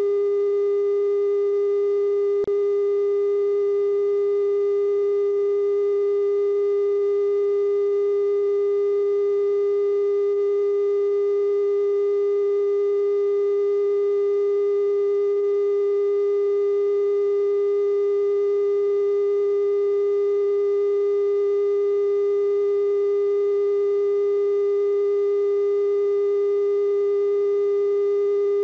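Steady 420 Hz television test tone, the reference tone broadcast with color bars after a TV station's sign-off. It holds one unchanging pitch with faint higher overtones, and there is a faint tick about two and a half seconds in.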